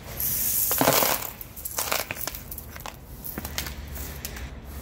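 Hand brush sweeping spent welding-rod stubs and slag off a steel grader blade, the pieces clattering into a plastic bucket. A loud rush of sweeping and falling metal lasts about a second near the start, followed by scattered clinks.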